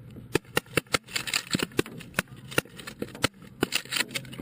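A rapid, irregular string of about fifteen sharp pops, several a second, from nonlethal weapons being fired during a crowd-control drill.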